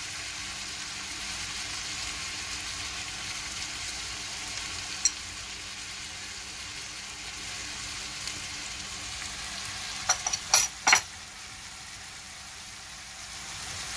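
Diced onion and peppers sizzling steadily as they fry in olive oil in a non-stick pan. A single click comes about five seconds in, and a short run of sharp knocks, the loudest sounds, comes near the end.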